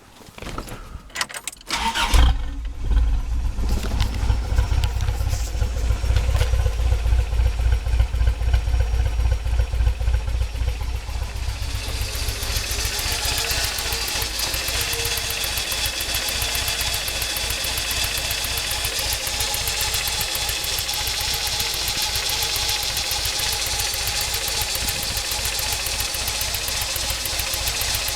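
A 1993 Toyota pickup's 22RE four-cylinder engine starts about two seconds in after a few clicks, then runs at idle with a steady low pulsing. About twelve seconds in, a hiss joins the engine sound and stays.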